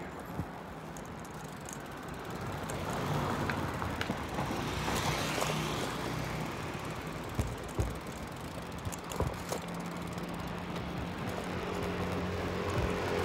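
Street traffic noise with a steady low hum, and a few sharp knocks and rattles about half a second, seven to eight, and nine seconds in; the traffic grows louder near the end.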